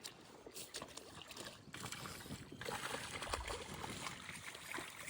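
Water sloshing and trickling around a small boat, with many small clicks and knocks of handling in the hull.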